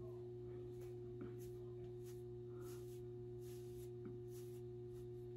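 Faint steady electrical hum with a constant tone, under soft repeated rustles of hands working the fibres of a synthetic wig.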